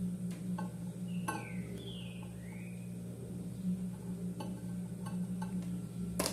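Microwave oven running with a steady low hum. A few faint clicks and two short gliding squeaks sound partway through, and a sharp click comes near the end.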